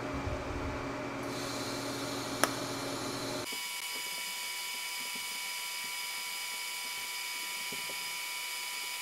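TIG welding arc struck with a sharp snap about two and a half seconds in, after a low hum. About a second later it settles into a steady high-pitched whine and hiss as the arc burns.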